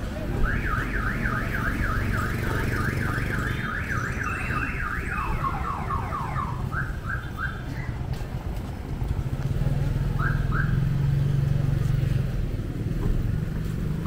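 Electronic vehicle alarm siren wailing in rapid rising sweeps, about four a second, for some four seconds, then shifting lower and breaking off into a few short chirps. A motorbike engine runs low underneath and grows louder near ten seconds in.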